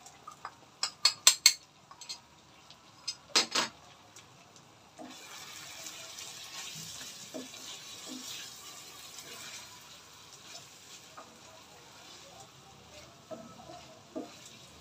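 Sharp utensil clinks, a quick cluster about a second in and two more near three and a half seconds, as ground spices are tipped into a pan of hog plum pickle cooking in mustard oil. Then a hissing sizzle from about five seconds that fades by ten, with a wooden spatula scraping and knocking in the frying pan as the spice is stirred through.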